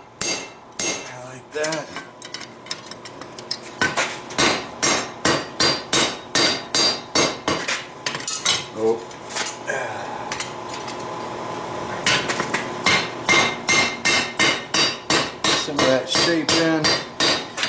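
Hammer blows on a steel punch and drift driven through a red-hot iron bar on an anvil, rapid ringing strikes about three a second, pausing for a couple of seconds midway.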